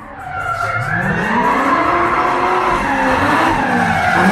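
A car drifting: its engine revving up and down as the tyres squeal, fading in at the start.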